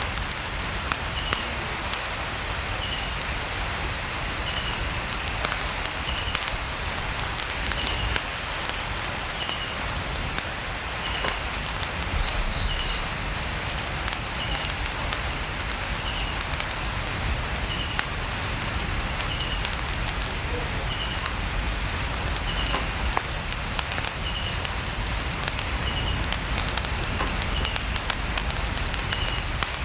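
Light rain tapping on a tent roof, a steady hiss with many small ticks, mixed with a crackling campfire. A short high chirp repeats about every second and a half.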